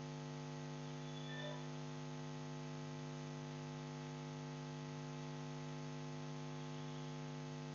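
Faint, steady electrical mains hum: a low buzz with a stack of even overtones that does not change.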